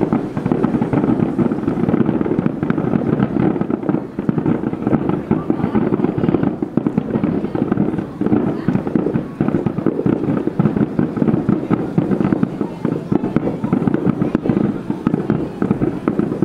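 Fireworks display shells bursting in a rapid, unbroken barrage, many booms and crackles overlapping, heard from one to two kilometres away.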